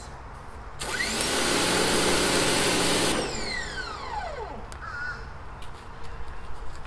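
Electric pressure washer started by the trigger: the motor whines up and the spray rushes for about two seconds, then the trigger is let go and the motor winds down in a falling whine.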